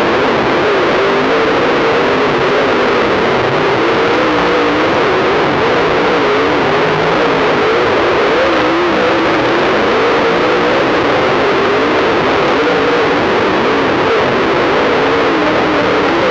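Race engine of a dirt-track super late model, picked up by an in-car camera microphone so overloaded that the sound is heavily distorted. It runs loud without a break, its pitch wavering up and down as the throttle changes.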